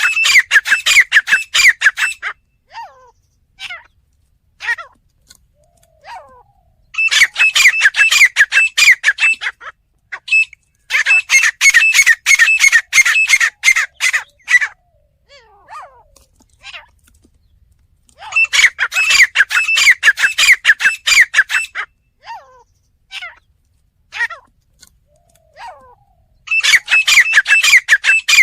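Teetar (francolin) calling loudly in bouts of rapid repeated high notes, each bout lasting two to four seconds. The bouts come about every six to eight seconds, about five in all, with faint single chirps in the pauses.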